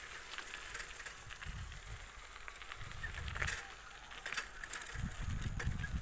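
Gusty rumble of wind on a moving microphone, with scattered light clicks and rattles and a faint hiss of open-air background.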